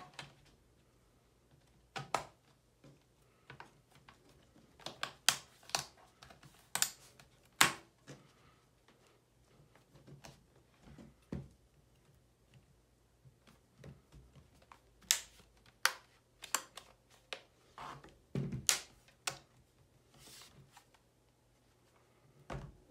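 Metal bottom cover of an HP EliteBook x360 laptop being pressed back onto the base, its retaining clips snapping into place in a series of irregular sharp clicks, some in quick clusters.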